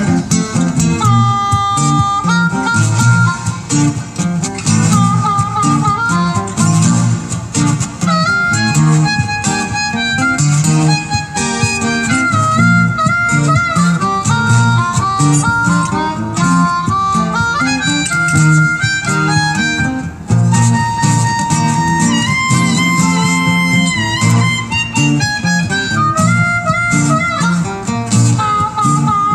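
Harmonica playing an instrumental solo of held and sliding, bent notes over two acoustic guitars strumming a steady rhythm.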